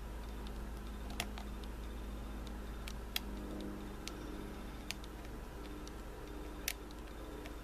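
Lock pick tapping and bouncing on the back pins inside an older Corbin pin-tumbler lock: about five small sharp clicks, irregularly spaced a second or two apart, over a steady low hum. The clicks are the pick working pins toward setting while the core gives slight movement under tension.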